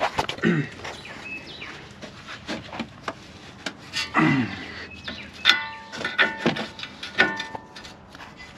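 Hand tools clicking and knocking on front suspension parts as a 21 mm wrench breaks a tight sway bar link nut loose. Two short falling vocal sounds come about half a second and four seconds in, and a run of high squeaks comes in the second half.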